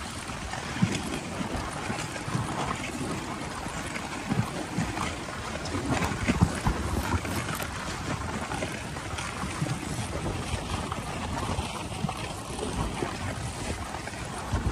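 Dog sled moving along a packed-snow trail: a steady scraping hiss of the runners over snow, with wind on the microphone and a few knocks as the sled bumps.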